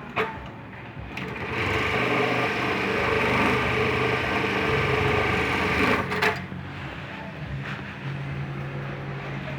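Jack JK1906 bartack sewing machine stitching velcro. A sharp click at the start, then a fast stitching run of about five seconds that ends in a couple of sharp clicks, after which only a quieter steady hum remains.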